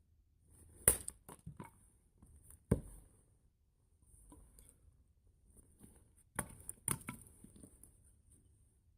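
A handful of sharp clicks and knocks at uneven intervals: a loud one about a second in, another near three seconds, and two close together past the six-second mark, with smaller ticks between them.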